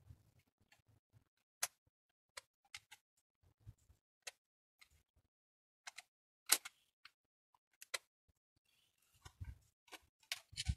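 Small hand tools, a screwdriver and pliers, clicking and tapping against a plastic BMX pedal as it is put back together by hand: a dozen or so scattered, irregular sharp clicks, with a few soft knocks near the end.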